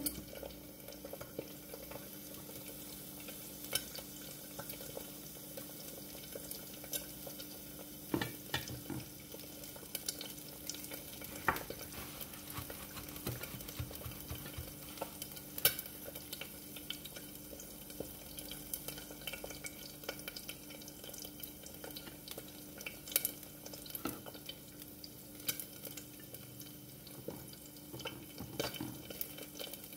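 An egg frying in oil in a covered skillet, a steady soft sizzle, under a steady low hum. Scattered light taps, clicks and rustles come from tortillas being handled on plates and from a paper towel.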